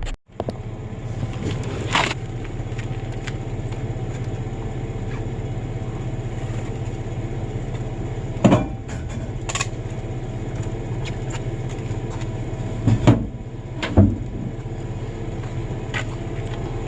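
Truck engine and road noise heard from inside the cab while driving, a steady low drone with a few short knocks and rattles, the loudest around the middle and near the end.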